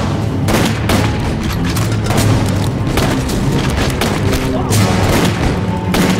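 Film gunfight sound effects: repeated rifle shots and booms at irregular intervals, over tense background music.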